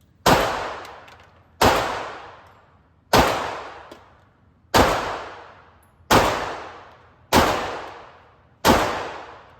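Handgun fired seven times in slow, steady succession, about one shot every second and a half, each report echoing and dying away in the enclosed indoor range.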